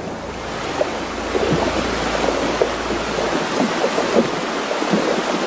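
Fast, shallow stream rushing over rocks, with many small splashes throughout.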